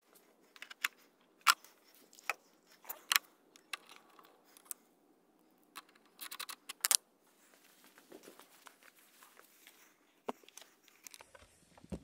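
Light clicks and taps of a socket wrench working a car battery terminal clamp, scattered through, with a quick run of clicks about six seconds in.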